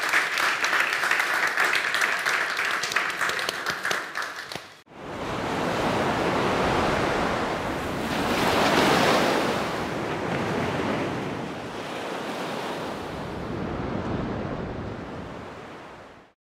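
An audience applauding for about five seconds, the clapping fading out. After a sudden cut, sea waves wash in and recede, swelling every two to three seconds, then fade out near the end.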